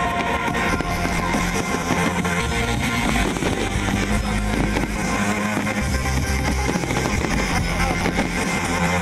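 Rock music with guitar, playing steadily and loudly.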